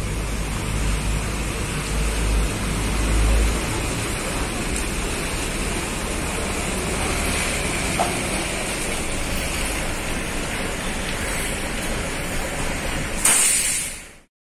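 Sumber Alam coach's diesel engine rumbling low as the bus pulls away and passes close by, under a steady hiss. Near the end a short, loud hiss rises, then the sound fades out.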